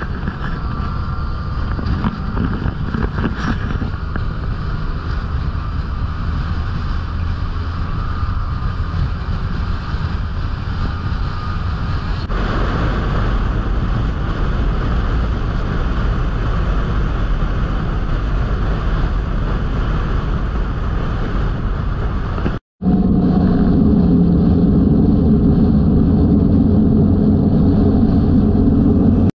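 Motorcycle riding along a road at speed: engine and road rumble under steady wind noise on the microphone. The sound changes abruptly about 12 seconds in, cuts out for an instant about three-quarters of the way through, and then comes back with a steadier engine hum.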